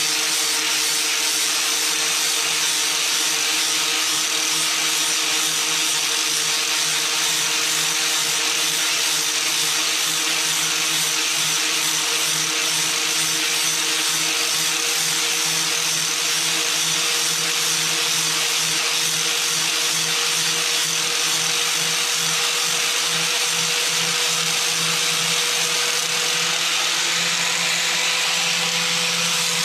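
Handheld power tool running at a steady speed, grinding rust buildup off a steel snowblower auger shaft to clean it up for new parts.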